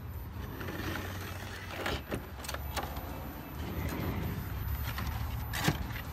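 Small clicks and knocks of plastic figures and diorama pieces and a cardboard box being handled on a plastic table, the sharpest knock near the end, over a steady low rumble.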